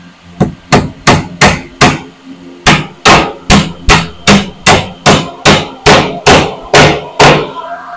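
Hammer driving 2-inch nails into the wooden frame of a table: about nineteen sharp strikes, roughly three a second, with a short pause about two seconds in.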